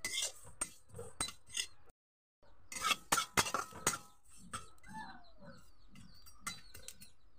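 Metal spatula scraping and clinking against an aluminium kadai as black sesame seeds are stirred and dry-roasted. The clicks come thick and fast, break off briefly about two seconds in, then thin out after about four seconds.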